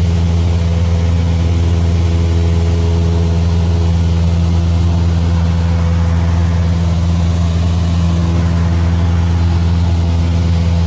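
Cessna 172's piston engine and propeller running steadily: a low, even drone that holds the same pitch throughout.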